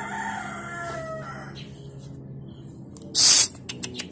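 A long pitched animal call, held and then falling in pitch at the end. About three seconds in comes a short, loud rush of noise, followed by several sharp clicks.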